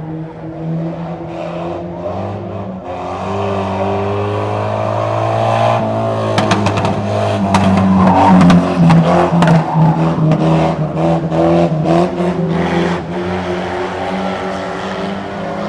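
Banger racing cars' engines running around an oval track, the pitch rising as one car speeds up. The car passes close by about eight seconds in, the loudest moment, with a quick run of sharp cracks and clatters as it goes past.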